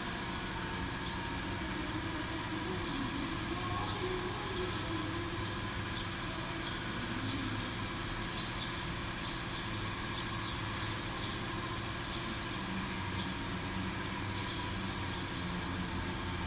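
Small 6090 hobby CNC router running: a steady machine hum with a faint high whine, broken by short sharp high ticks every half second to a second.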